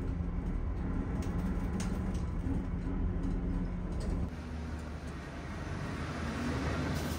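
City bus engine running, heard from inside the passenger cabin as a steady low drone with a hum. About four seconds in it gives way to a quieter outdoor sound of the bus idling at the kerb.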